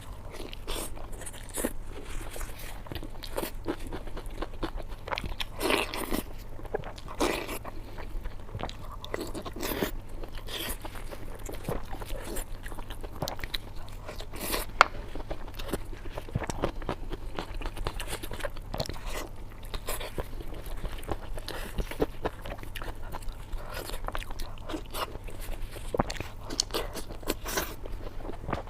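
Close-miked chewing and biting of pork belly: a steady run of small crunches, clicks and mouth sounds, with a few louder bites.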